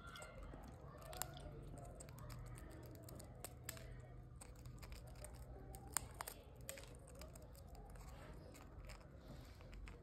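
Rose-ringed parakeet biting and crunching at a hard biscuit held in its foot: faint, irregular sharp clicks of beak on biscuit, the loudest about a second in and about six seconds in.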